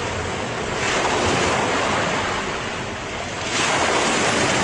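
Ocean waves washing onto a shore, a steady hiss of surf with two surges, one about a second in and one near the end.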